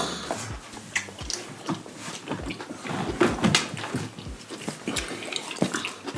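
Close-miked eating sounds: a person chewing salmon, with many short, irregular wet smacks and clicks.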